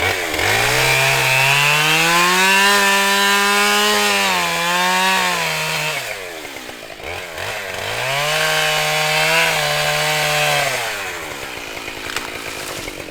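Husqvarna 572XP two-stroke chainsaw running at high revs, its pitch dropping back about six seconds in and climbing again, then falling to a lower speed near the end.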